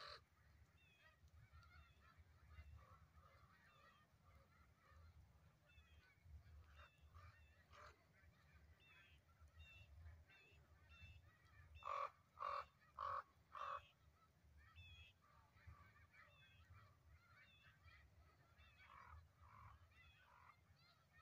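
Distant flock of snow geese calling, a faint, constant chorus of short honks. About twelve seconds in, a crow caws four times in quick succession, much louder than the flock.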